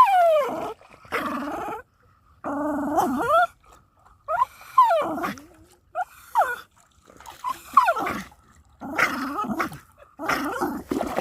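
Dog making a string of vocal noises while tugging a toy: about nine separate drawn-out cries, many sliding steeply up or down in pitch, with short pauses between them.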